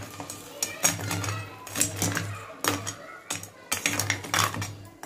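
Kitchen utensils and dishes clinking and knocking against each other, a handful of irregular sharp knocks.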